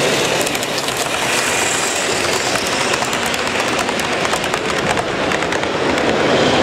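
Model railway trains running on an exhibition layout, their small wheels making rapid fine clicks over the track against a steady background noise.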